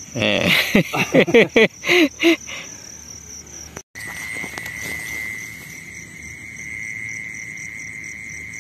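Night insects keep up one steady high-pitched trill. Over the first couple of seconds a person's voice talks over it, and after a brief break near the middle the trill carries on alone.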